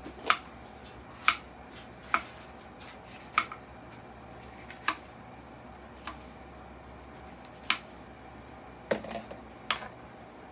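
Chef's knife slicing a bell pepper and knocking down onto a wooden end-grain cutting board: about ten sharp, separate knocks spaced a second or so apart, unevenly.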